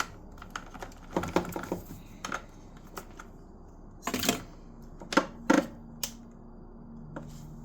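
Irregular light clicks and knocks from hands working on an e-bike's parts and controls, a few scattered across several seconds with a louder knock about four seconds in. A faint steady hum comes in about halfway through.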